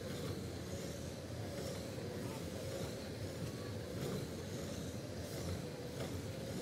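Electric radio-controlled short-course trucks racing on an indoor carpet track: a steady hum of small motors and tyres, with a faint wavering whine.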